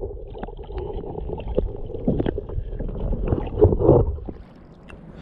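Muffled sloshing and gurgling of seawater heard through a camera held underwater, with a few soft knocks and a louder muffled swell about four seconds in.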